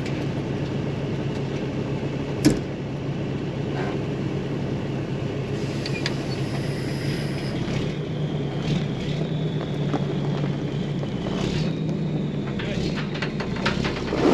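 Peterbilt roll-off truck's diesel engine running at a steady speed while it is set up to winch a stuck skid steer, with a sharp knock about two and a half seconds in and a short hiss near the end.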